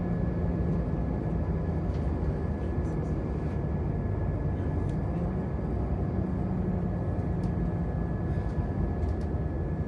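Passenger train running, heard from inside the carriage: a steady rumble with a low engine drone, a faint high whine and occasional light clicks.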